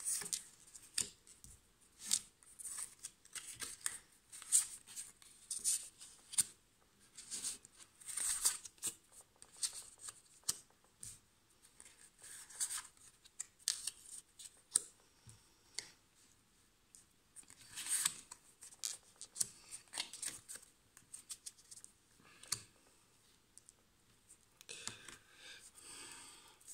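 Tarot cards being shuffled and handled: repeated short papery snaps and rustles of the deck in the hands, with cards set down on a wooden table near the end.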